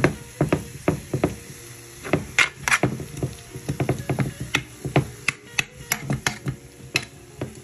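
A metal spoon knocking and scraping against a skillet as it breaks up and stirs browning ground beef: irregular clicks and scrapes, several a second.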